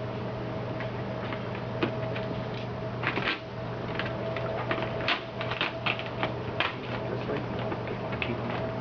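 Irregular small clicks and crackles of tint film being handled, cut and pressed around a taillight, over a steady background hum.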